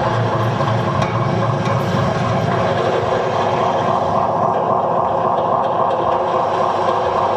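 A steady, dense, machine-like drone from an experimental music performance: a cluster of held middle tones over a low grainy rumble, with no beat.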